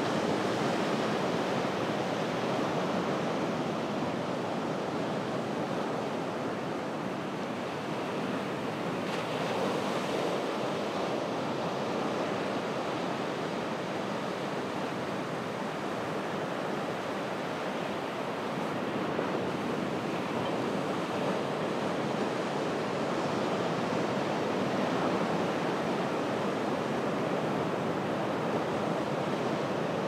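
Ocean surf on a beach at low tide: a continuous rush of breaking and washing waves that swells a little now and then.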